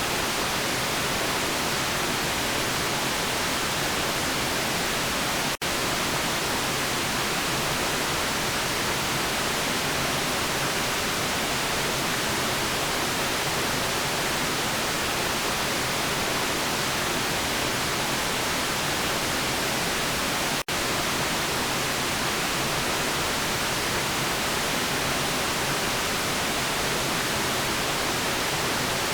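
Steady, even hiss of synthetic white noise, dropping out for a split second twice.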